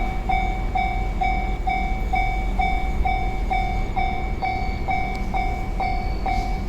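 Japanese level-crossing warning bell ringing, its electronic ding repeating evenly about twice a second over a steady low rumble.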